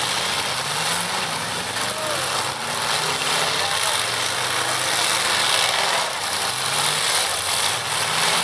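Several demolition derby cars' engines revving over and over in rising sweeps, over a dense wash of noise. A few metal-on-metal crunches come through as the cars hit each other.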